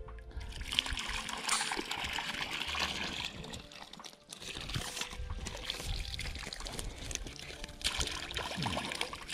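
Water pouring and trickling from a tub as a catch of small live perch is tipped back into the lake, with a brief break about four seconds in.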